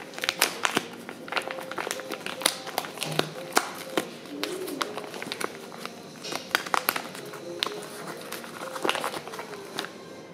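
Paper seed packet being handled and opened by hand: irregular crinkling and sharp crackles, with faint music underneath.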